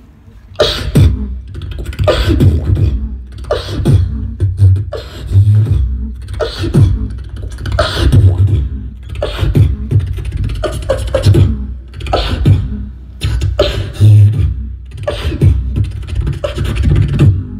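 Beatboxing into a microphone: a steady rhythm of deep kick-drum-like bass hits and sharp snare-like clicks, starting about half a second in.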